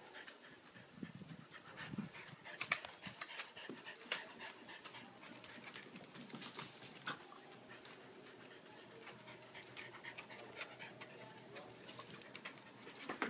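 Dogs panting as a French bulldog and another small dog play-wrestle, their claws clicking and scrabbling on wooden deck boards. A couple of short low grunts come about one to two seconds in.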